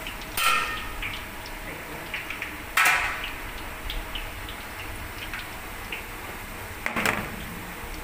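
Chopped onions and browned minced meat frying with a steady hiss in a large stainless steel pot, as a metal spoon stirs them, with three louder scrapes or knocks of the spoon against the pot, about half a second in, about three seconds in and about seven seconds in.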